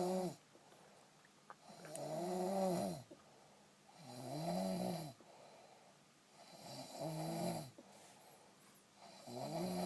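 A heavy-set person snoring: a series of snores about two and a half seconds apart, each one rising and then falling in pitch, with quieter breathing gaps between.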